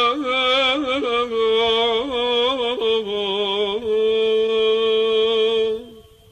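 A solo male voice sings a wordless, ornamented melismatic phrase in religious chant style, ending on a long held note that breaks off about six seconds in.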